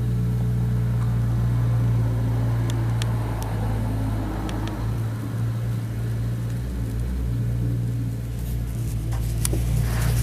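Mustang 2054 skid steer loader's engine running steadily, with a few sharp clicks around three seconds in, halfway through and again near the end.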